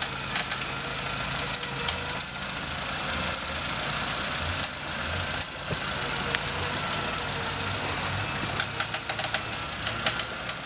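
Suzuki off-road 4x4's engine running steadily at low revs as it crawls up a steep dirt slope, with clusters of sharp crackles and clicks from twigs and stones under the tyres.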